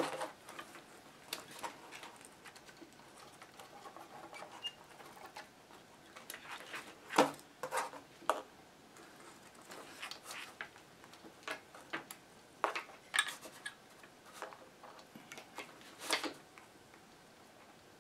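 Irregular small clicks, taps and scratchy rustles of hands handling hookup wire, a soldering gun and small tools on a workbench, with a few sharper knocks.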